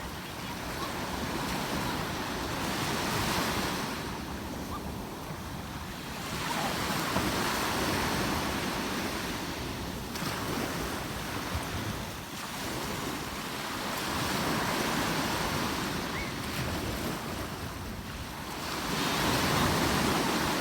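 Sea waves washing in on the shore, swelling and falling back every four to six seconds, with wind rumbling on the microphone.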